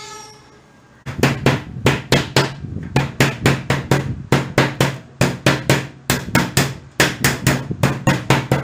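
Ball-peen hammer striking a powder-coated steel sheet strip, with sharp metallic blows at about three a second starting about a second in. The blows fold the strip's edge over an angle piece to leave a blunt, stronger rim.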